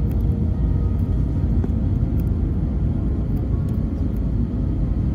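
Steady low rumble of an Airbus airliner heard from inside the passenger cabin: engine and airflow noise.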